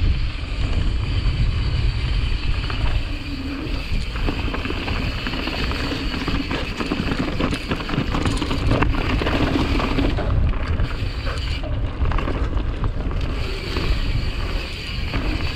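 Mountain bike ridden down a dirt trail: wind rushing over the camera's microphone, with the tyres on the dirt and the bike's chain and frame rattling and knocking over bumps.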